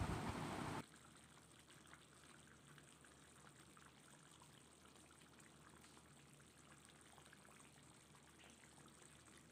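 Faint bubbling of a mustard fish curry simmering in a pan while the fish are turned over. A louder, even rushing noise cuts off suddenly just under a second in.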